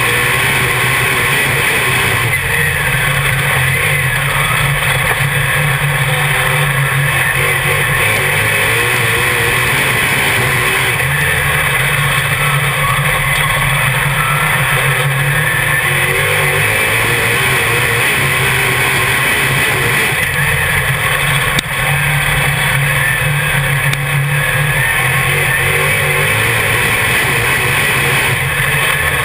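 Dirt modified race car's V8 engine running loud at race pace, heard from inside the cockpit. Its note eases and builds again roughly every nine seconds.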